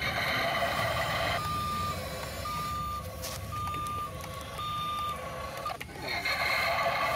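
Electronic reversing beeper on a toy RC construction vehicle: a single steady tone beeping about once a second, each beep about half a second long. A louder buzzing sound comes before the beeps and returns about six seconds in, over a low rumble.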